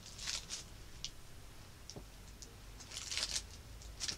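Faint puffs of breath and a few small clicks as a man handles and draws on a cigar. There are short hissing puffs near the start, about three seconds in, and just before the end.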